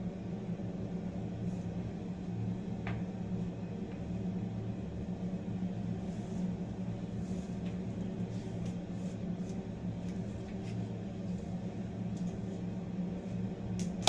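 Steady low electrical or fan-like hum of a small room, with a few faint soft ticks and brushing sounds and a short click at the very end.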